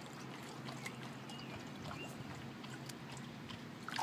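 Shallow water lapping and stirring with small drips and ticks, then a sharper splash near the end as something in the water breaks the surface beside a wading dog.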